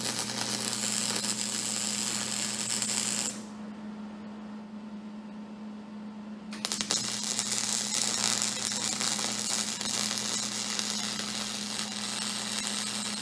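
Electric arc welding on steel: the crackling hiss of the arc as cracks in a stamped-steel mower lowering handle are welded up. Two welds, a short one of about three seconds, then after a pause of about three seconds a longer one of about seven seconds, with a steady low hum throughout.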